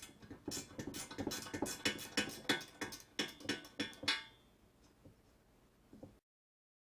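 Socket ratchet working a bolt loose on a lathe's metal bed, a quick series of metallic clicks and knocks about three a second that fade out after about four seconds. The sound cuts off abruptly about six seconds in.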